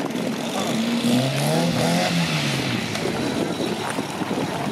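Ford Granada Mk3 saloon driving slowly past at low revs, its engine note rising and then falling as it passes, with tyres crunching over gravel.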